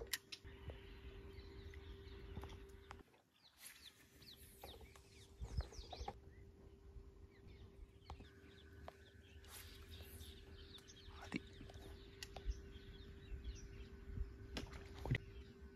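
Faint birds chirping, many short calls and quick downward-sweeping chirps, over a steady low hum and a low rumble of wind or handling on the microphone.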